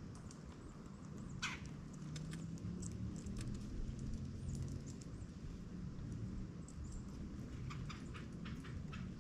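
Woodpeckers at a plastic ground feeder: scattered short sharp taps and chips, with a quick run of them, about six a second, near the end, over a low steady rumble.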